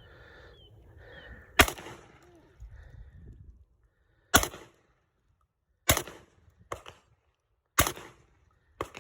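A JTS MK12 AK semi-automatic 12-gauge shotgun firing: four loud shots spaced about one and a half to two seconds apart, with two fainter sharp cracks between the later ones.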